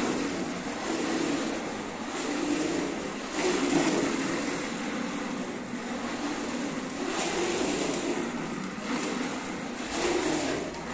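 Hard plastic wheels of a child's foot-pushed ride-on toy car rolling over a polished stone floor, a continuous rolling noise that swells and fades as the car is pushed along.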